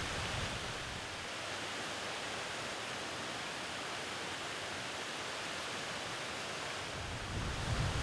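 Steady rushing hiss of river water spilling over a low stone weir, with a low rumble coming in near the end.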